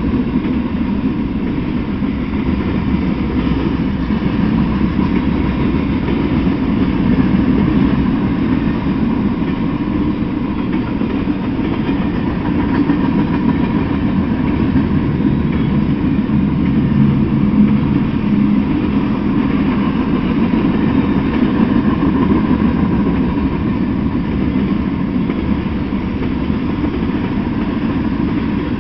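Freight train of boxcars, covered hoppers and tank cars rolling past, a steady rumble of steel wheels on the rails.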